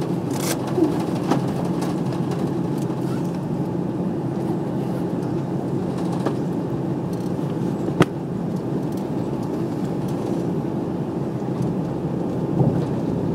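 Steady cabin drone of an Airbus A340-300 taxiing, heard from inside the cabin: engine and airflow noise with a faint low hum. A single sharp click comes about eight seconds in.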